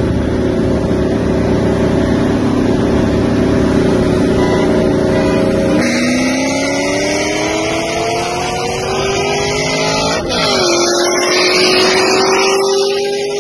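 Chevrolet Corvette C6 Z06's 7.0-litre LS7 V8 running hard at full throttle, heard from inside the car. About six seconds in and again about ten seconds in, the engine note drops suddenly at an upshift and then climbs steadily as the revs build again.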